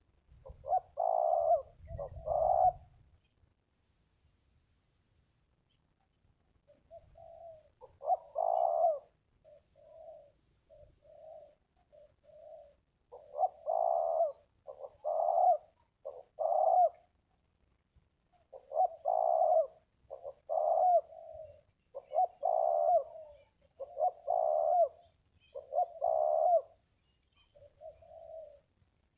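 Spotted doves cooing, a run of low repeated coo phrases with a pause of a few seconds early on. Brief high-pitched chirping trills from a small bird come three times.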